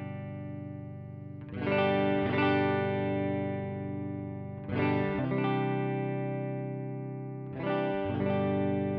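Suhr Classic S electric guitar played through a Joyo American Sound amp-simulator pedal, strumming sustained chords while the pedal's high (treble) EQ knob is turned. A new chord is struck about every three seconds, each with two quick strums, and left ringing.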